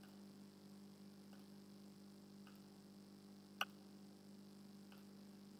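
Near silence: a steady low electrical hum, with one faint click about three and a half seconds in.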